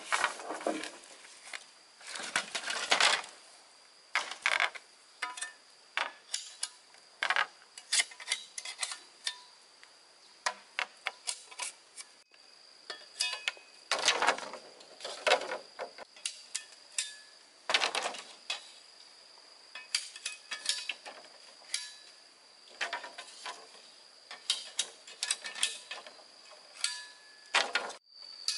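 Irregular knocks, clicks and scraping strokes of hand work with wood or tools, over a steady high insect drone.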